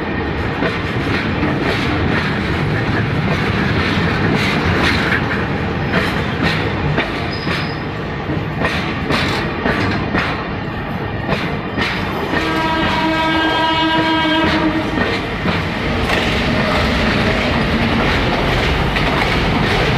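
Freight train rolling slowly along the track, its wagon wheels clicking over the rail joints. A little past halfway, a train horn sounds steadily for about two and a half seconds.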